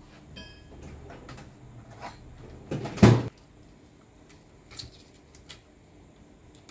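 Hand-handling sounds of tool parts: a few light clicks and taps, then one loud clunk about three seconds in, followed by a couple of small ticks.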